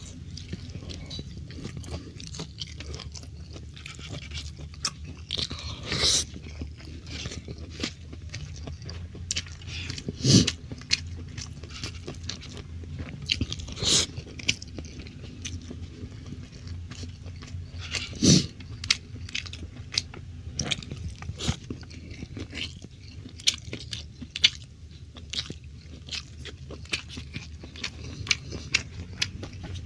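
Close-up chewing and mouth sounds of someone eating stir-fried beef with rice: irregular small clicks and smacks, with a few louder clicks now and then, over a low steady hum.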